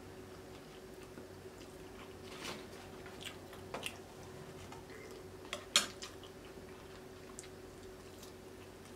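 Close-miked eating sounds: scattered soft clicks of a spoon and the small wet mouth sounds of chewing and biting, the sharpest about six seconds in, over a faint steady hum.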